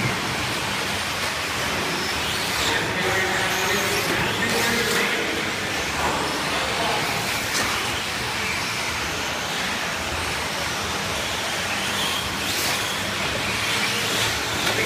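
A pack of electric RC short-course trucks racing: a steady mix of motor whine and tyre noise, with a few short knocks.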